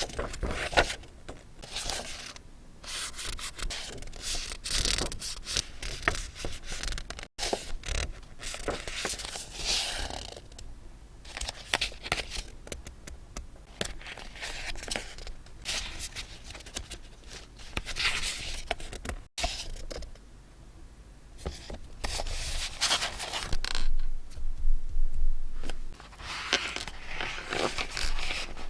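Paper and stationery being handled for scrapbook decorating, with rustling, scraping and crinkling in irregular bursts and brief pauses between them.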